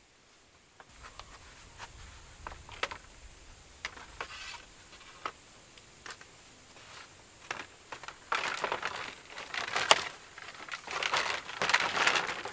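Dry bamboo poles clacking and knocking against each other as they are handled, with scattered sharp clicks, then a few seconds of louder crackling and rustling of leaves and brush as poles are pulled from a pile, starting about eight seconds in.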